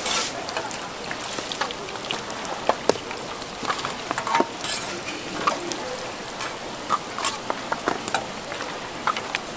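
Hotteok frying in shallow oil on a flat steel griddle: a steady sizzle, with scattered sharp clicks of metal tongs and a hotteok press knocking against the griddle.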